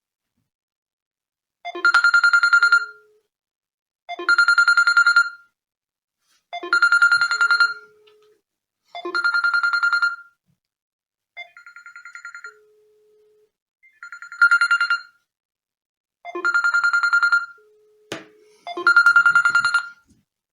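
Samsung Galaxy A9 (2018) smartphone ringing for an incoming call. A trilling ring-tone phrase repeats eight times, about every two and a half seconds, and the fifth ring is fainter. A short sharp click comes near the end.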